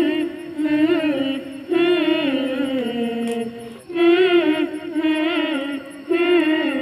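Voices singing a Hindi welcome song, long held notes with vibrato in phrases of about two seconds, with no clear words.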